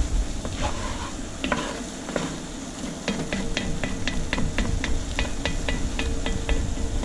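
Utensil stirring and scraping a thick, sticky roux-and-tomato base in a pot as it sizzles. About three seconds in, the scraping settles into a steady rhythm of about four strokes a second.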